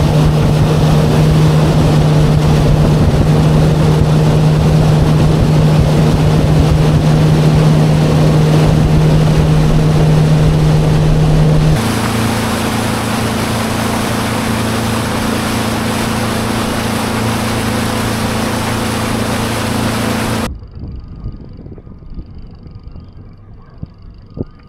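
Warrior 165 fishing boat's engine running under way, with water rushing along the hull and wind on the microphone. The engine note changes to a lower, somewhat quieter hum about 12 s in. The sound drops away to a faint background about 20 s in.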